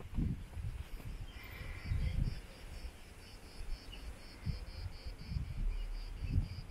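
An insect chirping in an even, high-pitched pulsed rhythm, about four to five chirps a second, starting a little over a second in. Soft footsteps on stone paving sound underneath.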